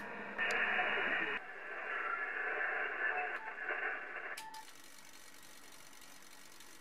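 Yaesu FT-991A amateur transceiver's receiver audio: band noise and static held within the narrow voice band of single-sideband reception, with two short beeps near the end. It cuts off about four and a half seconds in, leaving a faint steady hiss.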